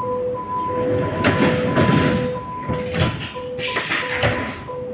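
Door-closing warning of a Nuremberg U-Bahn DT3 train: a two-tone beep sounding about twice a second while the sliding doors run shut. A thud comes about three seconds in and a short burst of noise near the end.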